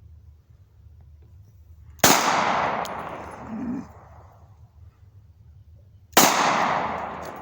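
Two shots from a Glock 21 .45 ACP pistol, about four seconds apart, each followed by a long echo that dies away slowly.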